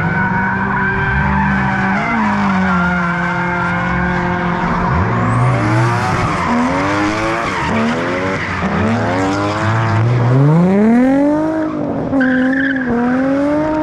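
Drift cars sliding through a corner one after another, engines revving hard with tyre screech. From about five seconds in the revs swing up and down quickly as the throttle is worked, with a long rising rev near eleven seconds.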